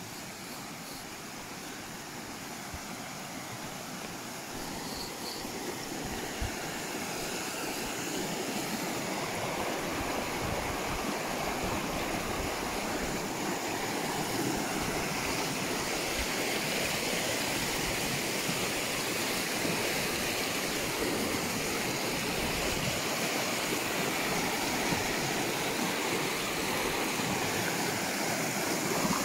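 Fast, shallow mountain stream rushing over rocks in small rapids, a steady rushing that grows louder over the first ten seconds or so as the water is approached, then holds.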